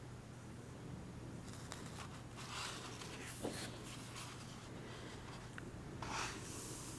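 A large paper page of a big art book being turned, with a soft swish of paper about two and a half seconds in. Near the end a hand slides over the page with another soft swish, among light paper clicks.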